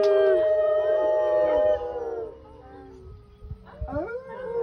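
Wolves howling in chorus, several long howls overlapping at different pitches and slowly falling. The chorus dies down about two seconds in, and a new howl rises near the end.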